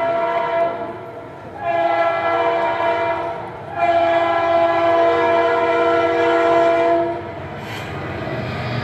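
Train horn sounding in long, steady chord-like blasts: one fades out about a second in, then two more follow, the second about three seconds long. After that comes a lower steady rumble.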